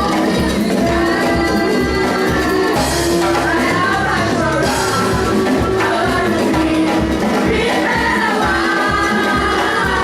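Praise music: voices singing over a band with a steady beat.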